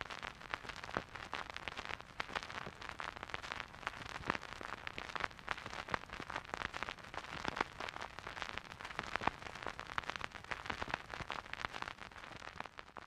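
Dense crackling: many small, irregular pops and clicks heard as a continuous crackle.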